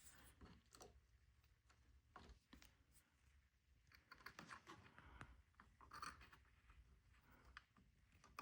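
Faint, scattered small clicks and scrapes of fingers and a tool working inside a cassette deck's mechanism, fishing a rubber drive belt out.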